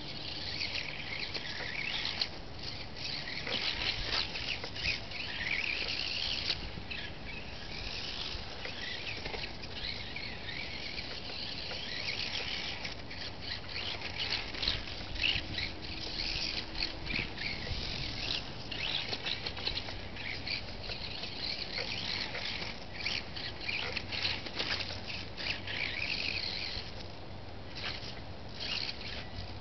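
Micro RC off-road car's small electric motor whining in short bursts, rising and falling in pitch as the throttle is worked around the dirt track.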